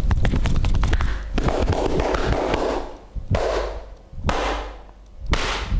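Hand massage: a fast run of sharp slaps or taps on the body, then a rubbing stroke and a few single slaps about a second apart.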